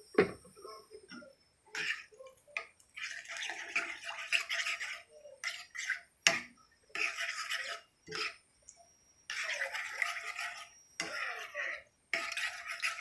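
Metal spoon scraping and clinking against a ceramic-coated skillet while stirring thinned mushroom gravy. It comes as scratchy strokes about a second long, with sharp taps in between.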